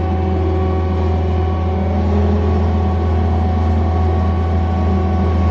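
John Deere 317 skid steer's diesel engine running steadily at about three-quarter throttle, heard from the operator's seat while driving.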